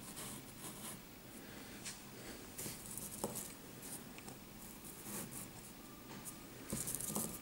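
Faint, intermittent scratchy rustling of hands handling moulded kinetic sand as a sand tower is pushed across the tabletop, with a few light taps. The busiest scraping comes near the end.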